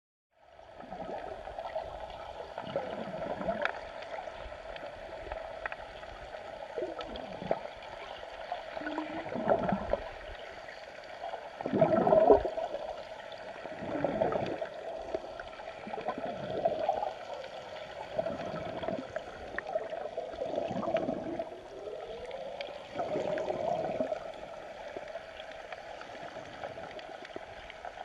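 Flowing river water heard through a submerged camera housing: a steady muffled rush with gurgling surges swelling every couple of seconds.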